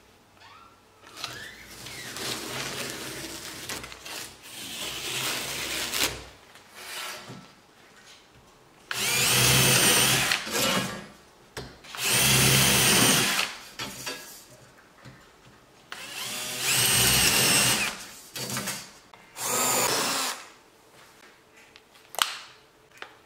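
Cordless drill boring holes through an aluminium profile into chipboard: four short runs of the motor, each whine climbing as the drill spins up. Before them comes a few seconds of rasping noise, and near the end a single click.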